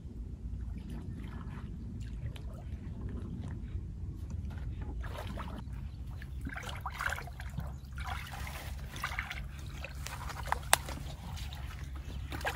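Shallow muddy pond water sloshing and splashing as hands grope through it and the mud beneath, irregular and starting about halfway through, with a sharp click near the end. A steady low rumble runs underneath.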